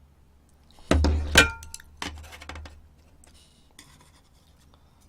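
Tableware clinking on a table: two sharp knocks about a second in, the second ringing briefly like a bowl or glass, then a lighter click.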